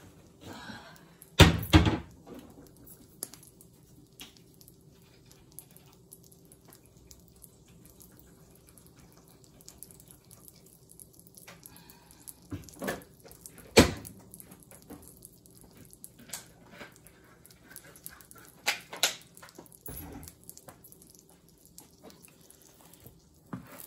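Scattered knocks and clunks of things being handled in a kitchen, loudest a double knock about a second and a half in and a sharp knock about fourteen seconds in, over a faint steady hum.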